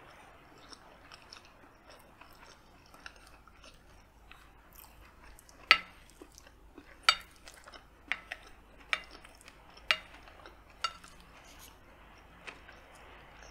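Quiet chewing with small wet mouth clicks, then a wooden spoon and fork knocking and scraping against a glass plate: a sharp clink that rings briefly, about once a second, several times in the middle of the stretch.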